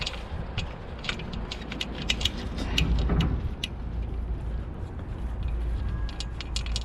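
Irregular metallic clicks and rattles from a sailboat's rigging hardware as the roller furler is lowered, over a steady low rumble.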